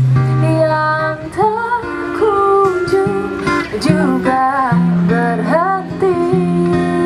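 Live acoustic duo: a woman sings a gliding melody over an acoustic guitar playing held chords and bass notes.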